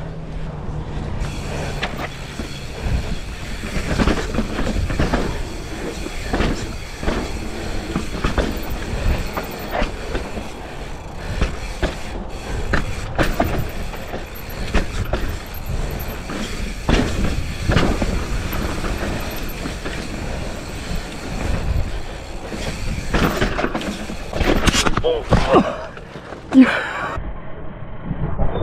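Commencal Clash mountain bike descending a dirt trail: tyres rumbling over dirt and rocks, with the frame and chain rattling and many short knocks over bumps. The knocks get louder near the end.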